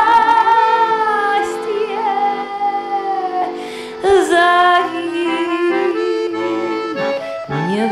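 Piano accordion playing the melody and chords of a slow song, with a woman's voice holding one long sung note over it for the first three seconds or so; from about four seconds in the accordion carries on with new notes.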